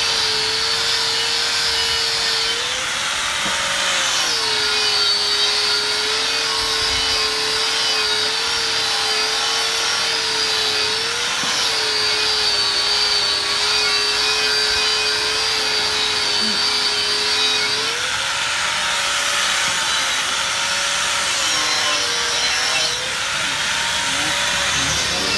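An angle grinder with a sanding disc and a bench-grinder wire brush both running against the lip of an aluminium scooter wheel rim, smoothing the bead seat that tyre sealant has corroded so the new tyre will not leak air. A steady motor whine over a grinding hiss, wavering up in pitch a few times.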